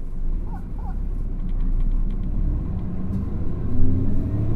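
Diesel engine of a Hino KL-HU2PMEK city bus running under way, rising in pitch and getting louder from about two seconds in as the bus accelerates.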